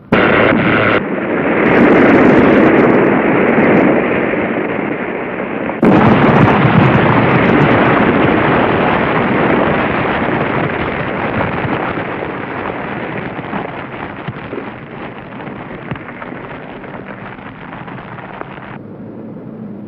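A car crashing into a utility pole and bursting into flames, as a film sound effect. A sudden crash comes at the start, a loud blast about six seconds in, then a long rushing noise of the car burning that slowly fades and drops away shortly before the end.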